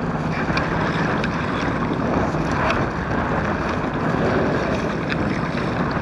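Strong wind buffeting the microphone over choppy water lapping around a kayak, a steady rushing noise with a few faint light knocks.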